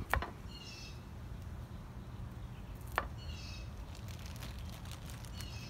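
Knife chopping cauliflower on a wooden tree-stump block: two sharp knocks of the blade into the wood, one near the start and one about three seconds later, over a steady low outdoor background.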